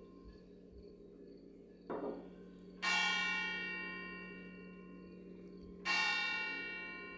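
A large bell tolling, struck twice about three seconds apart, each stroke ringing on and slowly fading, preceded by a duller, softer knock, over a steady low hum.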